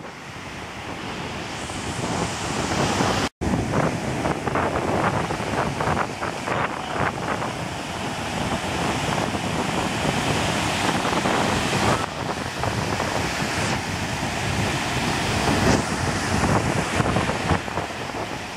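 Surf breaking and washing up the beach, with strong wind buffeting the microphone. A split-second dropout cuts the sound about three seconds in.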